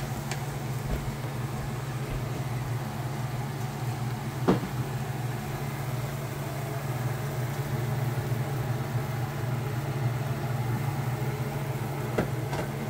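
Steady low mechanical hum of a running kitchen appliance, with one sharp click about four and a half seconds in.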